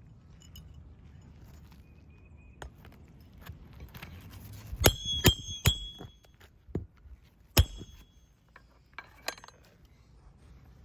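Metal hand tool striking during laminate roof shingle work: three quick ringing metallic hits about five seconds in, then one more about two seconds later, among lighter clicks and taps.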